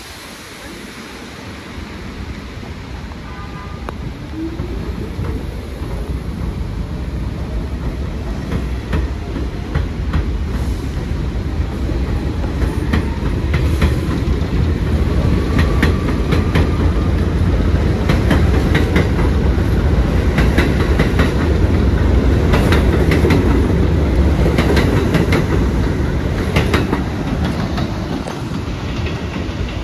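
R46 New York City Subway train pulling away: its traction motors whine up in pitch as it accelerates, and its wheels clack over the rail joints. It grows louder as the cars pass and fades a little near the end as the train moves off.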